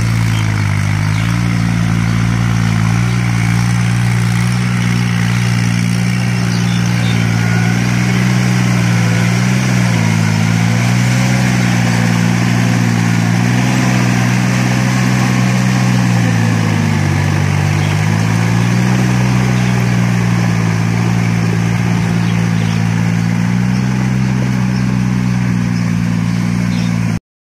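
Kubota tractor's diesel engine running steadily under load, driving a rotary tiller through muddy ground. Its note dips in pitch about ten seconds in and again around seventeen seconds, then recovers. The sound cuts off suddenly just before the end.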